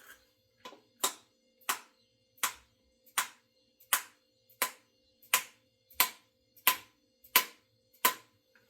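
A steady run of about a dozen sharp hammer blows, roughly one every 0.7 seconds, each with a short ring, getting a little louder as they go: the kind of striking used to seat an axe head onto its handle.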